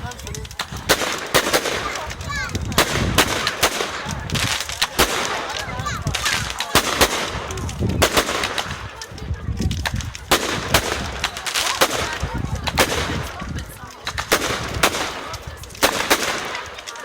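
Fireworks going off: a long run of sharp bangs in quick succession, over a dense crackle.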